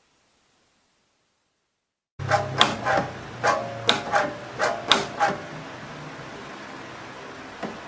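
Home-made PVC-pipe foot-pedal sanitizer dispenser being worked: after two seconds of silence, about nine sharp plastic clacks and knocks in quick succession over three seconds as the pedal and pipe linkage move, then a steady hiss with one faint knock near the end.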